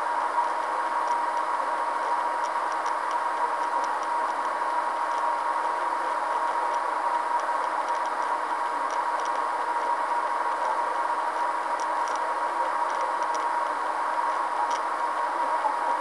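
Steady car cabin noise while driving over a rough dirt road, with a constant high whine and faint, irregular small ticks.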